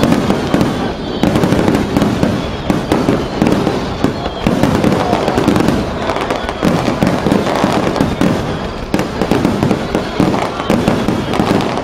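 Aerial fireworks going off in rapid succession: many bursts and crackles running together into one loud, continuous barrage.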